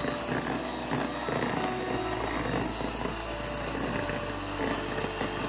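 Electric hand mixer running steadily, its wire beaters whirring and scraping through butter and powdered sugar in a stainless steel bowl as they are creamed together.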